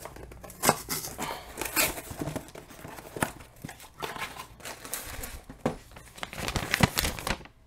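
Cardboard shipping box being slit open with a knife and its flaps pulled back, with the foil liner inside crinkling: a run of irregular scrapes, tears and crinkles that dies down shortly before the end.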